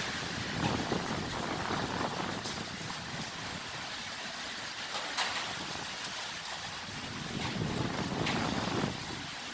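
Typhoon wind blowing hard in gusts, a continuous roar that swells twice, briefly at the start and again near the end, with a few faint sharp ticks in it.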